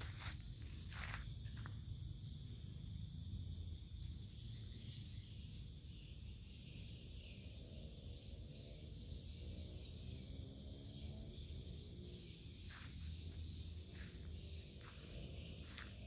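Crickets trilling: a steady, high, rapidly pulsing chirr that never stops, over a low rumbling background noise, with a few soft footstep-like clicks in the last few seconds.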